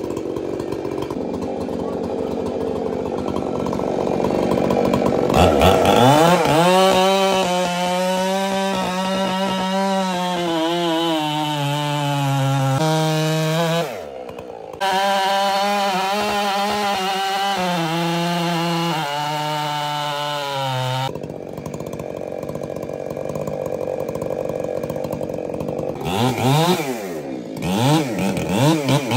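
Husqvarna 592XP chainsaw, a large two-stroke saw, running at high revs while cutting through a big tree trunk, its pitch dropping in steps as it loads down in the cut. Near the end it revs up and down several times.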